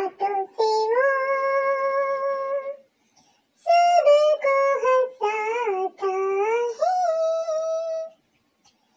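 A very high-pitched voice singing a children's song, with long held notes and little or nothing else behind it. It breaks off briefly about three seconds in and again near the end.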